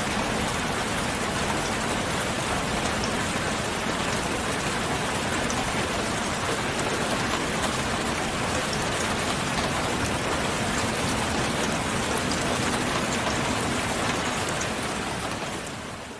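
Steady rain-like hiss with faint pattering ticks, fading out near the end.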